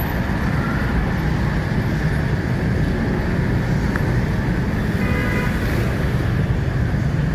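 Busy street traffic: motorbikes and bajaj auto-rickshaws running close by in a steady low rumble, with a short horn toot about five seconds in.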